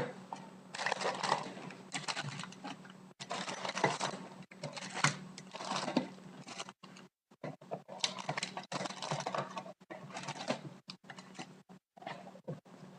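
Close handling noise: irregular rustling with scattered clicks and knocks, broken by brief pauses.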